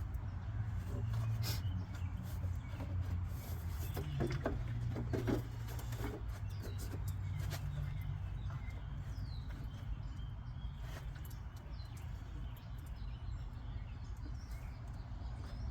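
Scattered light clicks and knocks of hand work on hoses and fittings in an engine bay, over a steady low hum, with a few faint bird chirps.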